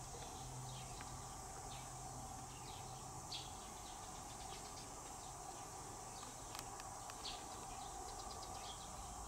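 Faint rural daytime ambience: a steady high-pitched insect drone, with scattered short bird chirps.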